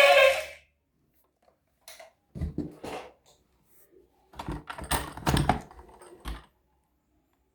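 Handling noise from unboxing toy vehicles: irregular clicks, knocks and rustles of plastic and packaging in a few short clusters. Background music cuts off just before them.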